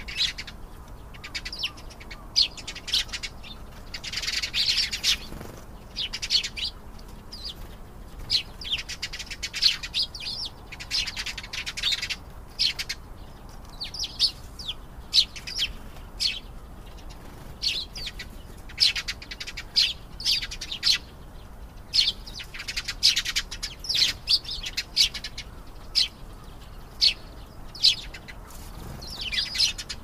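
Domestic canary singing: a run of high chirping song phrases and fast rolling trills, broken by short pauses.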